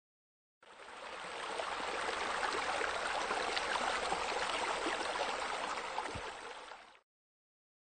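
Running, splashing water: a steady rush with fine crackle that fades in shortly after the start and fades out near the end.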